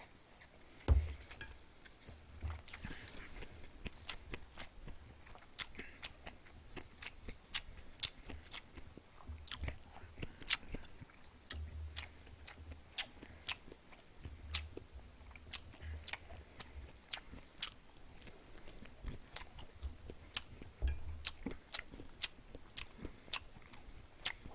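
A person chewing food close to the microphone: a steady run of small, sharp mouth clicks, with soft low thuds here and there and one louder click about a second in.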